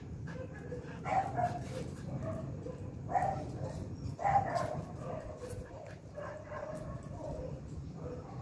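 Jack Russell terrier crying out in a string of short yelps and whines during a mating tie, the loudest cries about one, three and four seconds in.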